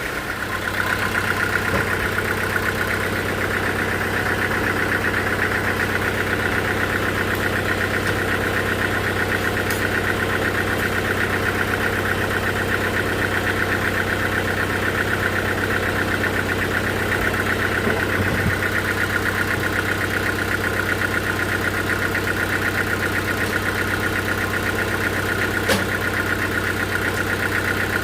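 Sawmill machinery running steadily: a low engine-like hum with a constant higher whine over it, rising slightly in the first second and then holding even, with a couple of faint clicks.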